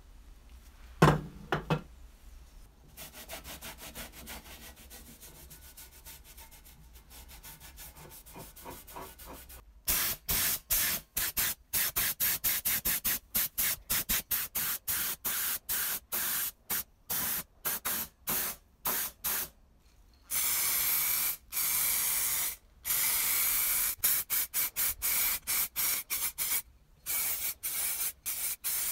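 A sharp knock from handling the metal toy cab about a second in, then paint being sprayed: many short hissing bursts, each one stopping abruptly, with two longer continuous sprays in the middle that carry a faint steady whistle.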